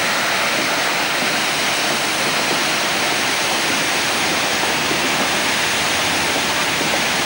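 Water rushing and splashing steadily where it pours out of the lower end of a large Archimedean screw into a stream bed.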